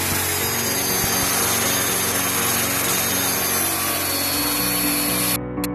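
Power saw cutting through a wooden board, running steadily at full speed, then stopping abruptly near the end.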